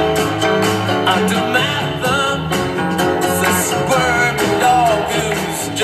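Background music with a plucked guitar and a singing voice.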